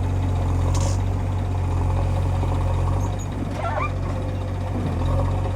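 Heavy diesel machinery engine running steadily with a deep, even hum. A brief squeaky chirp cuts in about three and a half seconds in.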